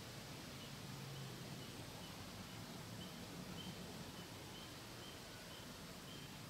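Quiet outdoor ambience: a steady hiss with faint, short, high chirps repeating about twice a second from about a second in.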